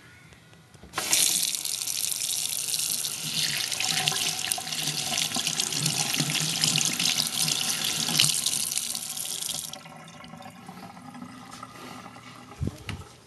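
Water running from a tap in a steady rush that starts suddenly about a second in and shuts off after about nine seconds. A brief low thump follows near the end.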